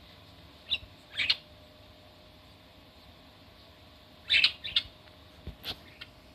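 Budgerigar giving short, sharp chirps: a single one about a second in, a quick pair just after, a burst of several about halfway through, and a few fainter chirps near the end.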